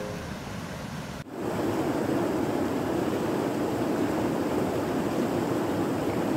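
River water rushing through a shallow riffle: a steady noise that gets louder after a sudden cut about a second in.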